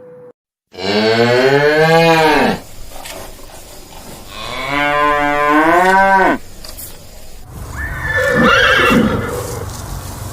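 A cow mooing twice, two long calls each rising and then falling in pitch. Near the end a horse starts to neigh with a wavering whinny.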